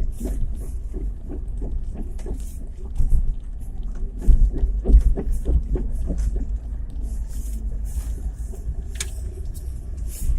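Cabin sound of a 2017 Chevrolet Niva pulling away in first gear: a steady engine and road rumble with a few sharp thumps about three to five seconds in. These are the kind of drivetrain knocks the owner suspects come from the front differential or the gearbox.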